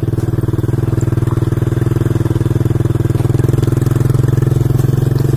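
Motorcycle engine running steadily at low, even revs.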